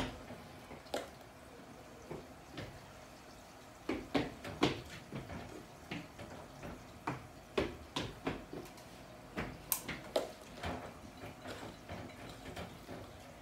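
Irregular knocks and taps: a child's footsteps and landings from jumps on a tile floor, mixed with plastic cups being set down on a wooden table.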